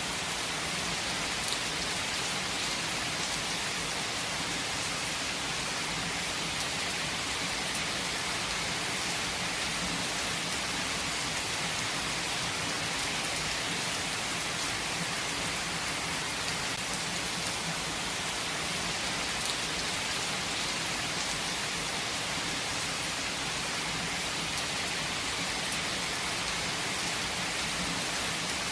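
Steady rain falling, an even hiss with scattered drops.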